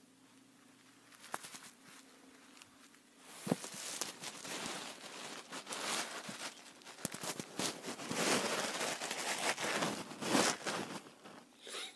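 Camera handling noise: rustling, rubbing and crackling on the microphone as the camera is moved and set in place, with a few sharp knocks. It starts with scattered clicks and becomes dense about three and a half seconds in, with a last short burst near the end.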